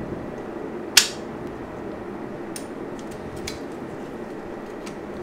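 Small plastic and metal parts of a diecast model car clicking and clinking as the body is pried off the chassis. One sharp snap about a second in, then a few lighter clicks, over a steady low hum.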